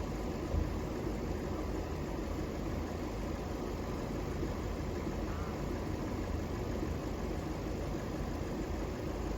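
Diesel multiple unit standing at the platform with its engines idling: a steady low rumble.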